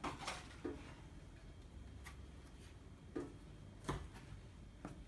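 Kitchen knife tapping on a wooden cutting board while hulling strawberries: several faint, irregularly spaced knocks.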